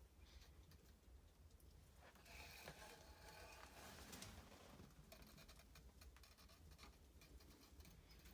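Near silence, with faint scattered ticks and light rustling from about two seconds in.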